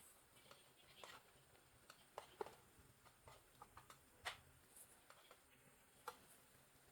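Near silence in a small room, broken by a few faint, scattered clicks and taps, the clearest about two and a half seconds in and just past four seconds in.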